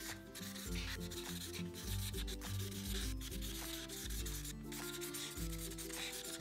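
Marker tip scribbling back and forth on paper, coloring in squares, with light background music underneath.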